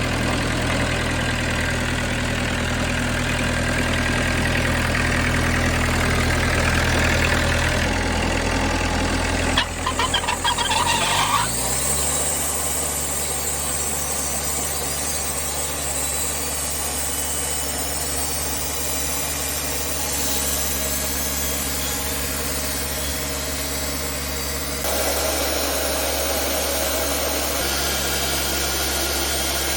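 Wood-Mizer LT-40 portable band sawmill running with a brand-new band blade on a hickory log, its engine humming steadily. About ten seconds in there is a short crackling burst and the engine settles at a higher pitch. Near twenty-five seconds the sawing noise grows louder.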